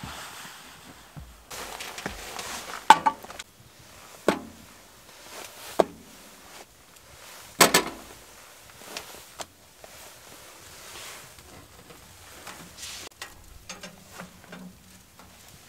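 Metal cookware and utensils clinking and knocking on a wood stove: a handful of sharp knocks a second or two apart, the loudest about three and eight seconds in, with smaller clicks near the end and spells of soft hiss between them.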